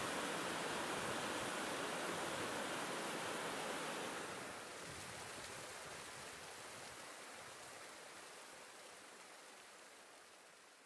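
Steady rushing of the seasonal 'phantom waterfall' on Mount Fuji, dropping a step about four seconds in and then fading away gradually.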